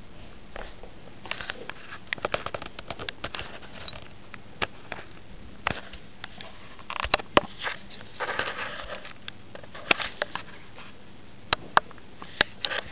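Newborn Border Collie puppies nursing: an irregular string of short, wet suckling clicks and sniffs, with a brief squeaky sound about eight seconds in.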